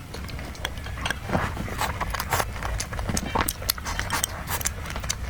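Close-miked eating: irregular wet chewing and mouth clicks, several sharp smacks a second.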